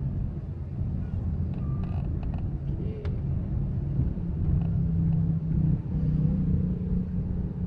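Engine and road noise heard inside the cabin of a moving Suzuki Ertiga: a steady low rumble, with an engine hum that grows stronger about halfway through.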